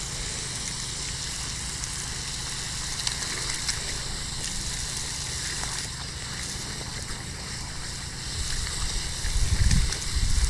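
Water spraying from a hole in a garden hose into a muddy puddle, a steady rushing hiss, while a dog splashes and noses about in the water. The splashing grows louder near the end.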